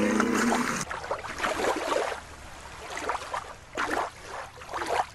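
Water sloshing and lapping in repeated short surges over a steady hiss.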